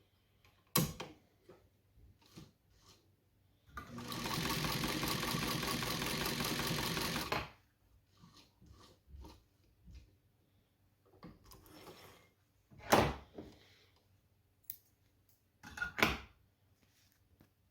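New Home Paragon class 15 straight-stitch sewing machine running fast for about three and a half seconds, an even rapid stitching patter. Single sharp clicks or knocks come about a second in and twice near the end.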